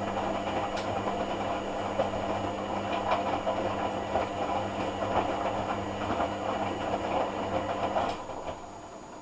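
Hoover AC166 Classica 1200 automatic washing machine running on its cotton rinse cycle: a steady hum with irregular clicks and rattles, which stops about eight seconds in, leaving a much quieter background.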